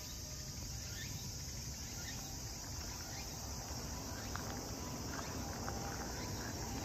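Steady outdoor ambience of insects chirring in the surrounding trees, an even high hiss with a few faint ticks.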